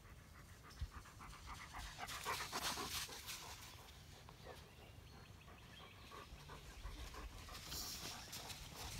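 A dog panting faintly in quick, even breaths, loudest about two to three seconds in.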